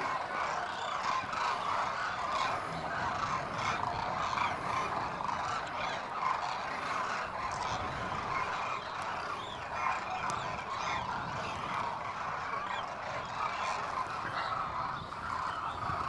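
A large flock of demoiselle cranes calling together: a dense, continuous chorus of many overlapping calls.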